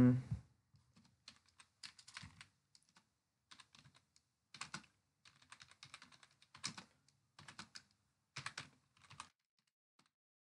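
Typing on a computer keyboard: clusters of keystroke clicks at an uneven pace, stopping about a second before the end.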